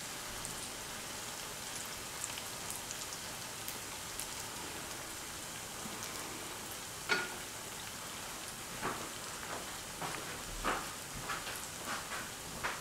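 Breadcrumb-coated paneer fingers shallow-frying in hot oil in a pan: a steady sizzle with scattered pops and crackles, a few louder ones in the second half.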